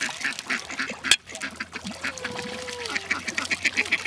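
A large flock of waterbirds calling all at once, many short quacking calls overlapping in a dense chatter, with one sharp knock about a second in.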